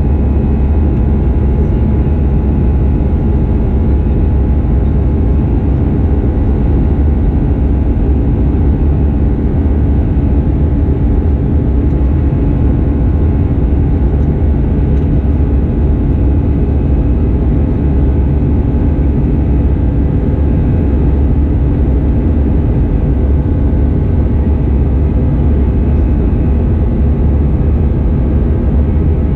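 Steady in-flight cabin drone of an Airbus A320-214 heard from a window seat: a low rumble of its CFM56-5B engines and the airflow past the fuselage, with faint steady whining tones above it.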